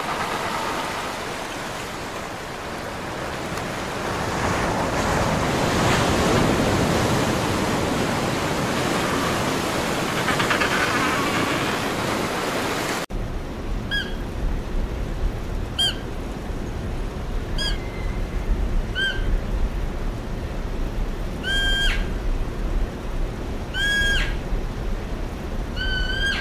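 Steady rushing of surf for about the first half. Then, after a sudden change, a low rumble with short, high whistle-like calls of red deer, one every second or two, the last few held longer.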